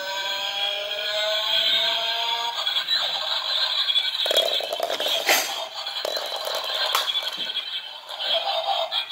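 Electronic tune from a battery-operated plastic toy car, its button just pressed; the melody stops about two and a half seconds in. Then comes irregular plastic rattling and scraping on a tile floor.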